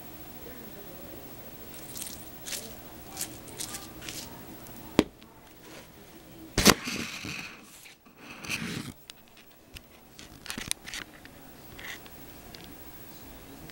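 Handling noises on a tabletop: a paper napkin crinkling and rustling and small objects being knocked and slid about. There is a sharp click about five seconds in, and the loudest burst of rustling and scraping comes a couple of seconds later.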